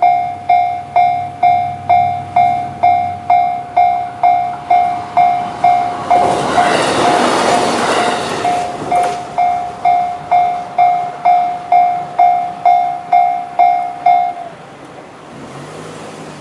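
Japanese level crossing alarm sounding the JR standard electronic bell, a repeated ding about twice a second. An E129 series electric train rushes through the crossing about six seconds in, its passage lasting about three seconds. The bell stops about fourteen seconds in.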